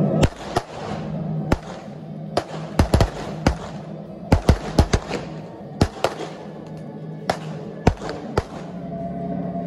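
Gunshots, most likely blanks fired in a staged western gunfight: about fifteen sharp reports at irregular intervals, several in quick pairs, over background music.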